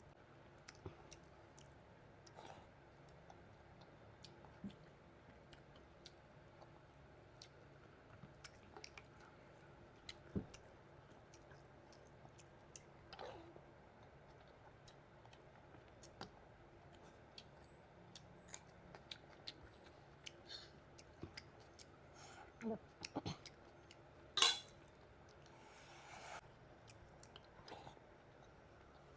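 Close-miked mukbang eating of panta bhat, soaked rice with green chili: faint chewing with scattered small mouth clicks, and one louder sharp click near the end.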